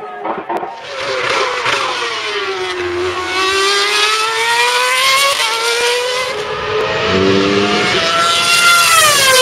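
Formula 1 cars' 2.4-litre V8 engines screaming at high revs on track. The engine note sinks to a low point about three seconds in, climbs again, and near the end rises to a high scream before falling off sharply.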